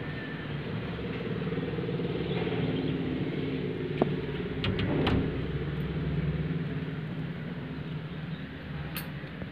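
A motor vehicle's engine running, a steady low rumble that swells in the middle and eases off toward the end. A sharp click comes about four seconds in, with a few ticks just after it and another click near the end.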